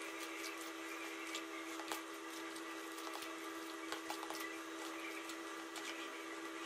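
Faint wet squishing and scattered small clicks of hands kneading beef pieces into a thick yogurt-and-spice marinade in a bowl, over a steady low hum.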